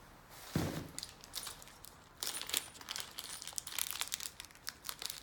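Plastic packaging crinkling and rustling with irregular small clicks as the bagged screws and pin from the box are handled.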